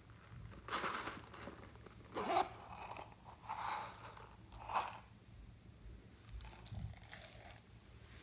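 Zipper of a small pineapple-shaped coin purse being pulled open in several short rasping strokes, then tiny beads shaken out of it onto slime in a glass dish.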